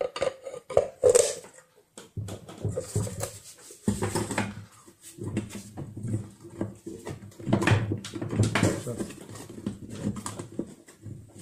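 An angle grinder fitted with metal mounting brackets and a plywood plate is handled on a wooden table: irregular knocks, clatter and rustling as it is turned and fitted. A few short, high squeaks come in the first second or so, the loudest about a second in.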